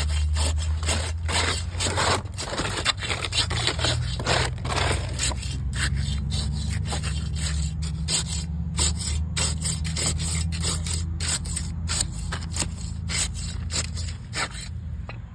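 Repeated scraping strokes of a trowel and gloved hand working cement into the hole around the base of a wooden post, quicker in the first few seconds, over a steady low rumble.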